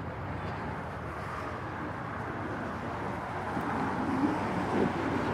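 Outdoor city ambience: a steady rumble of traffic, growing a little louder over the last couple of seconds.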